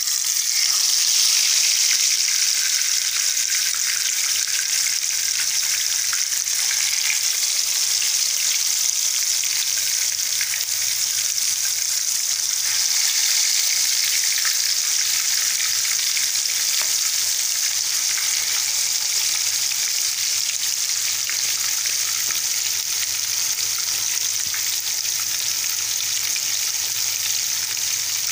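Hot oil sizzling loudly and steadily as pieces of marinated chicken shallow-fry in a pan, the sizzle jumping up at once as the first piece goes into the oil.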